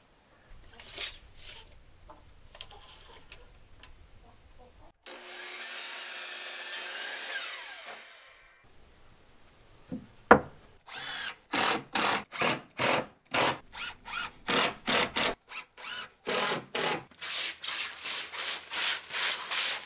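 Woodworking sounds: a power tool runs for about three seconds and winds down, a sharp knock follows, then a long run of rhythmic back-and-forth rasping strokes on wood, about two a second.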